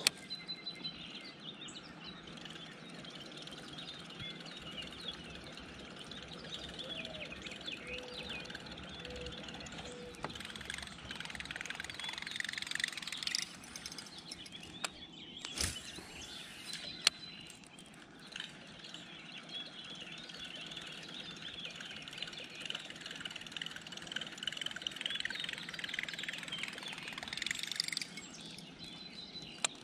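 Many birds chirping together in a steady outdoor chorus that swells and eases a couple of times, with a single sharp click about halfway through.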